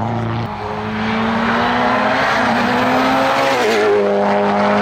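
A hillclimb race car's engine at full throttle, pulling hard with its pitch climbing steadily, then dropping suddenly once a little before the end as it shifts up a gear.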